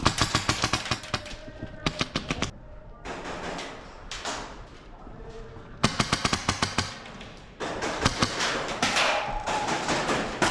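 Airsoft guns firing on full auto in short bursts of rapid shots: two bursts in the first two and a half seconds, another about six seconds in, and steadier, hazier fire from about eight seconds on.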